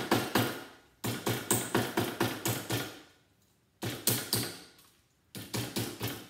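A hammer tapping on a small plastic toaster component box clamped in a bench vise to break it open. The taps come in quick runs, about five a second, with short pauses between the runs.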